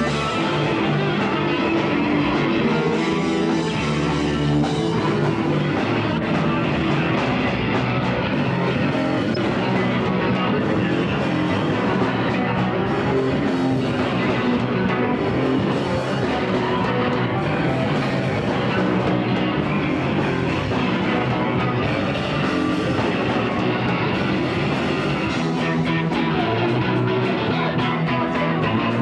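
Rock music with guitar and drum kit playing continuously at a steady level.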